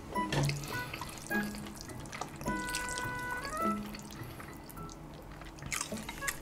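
Soft background music of short plinking notes, with a man slurping and chewing cold spicy noodles close to the microphone.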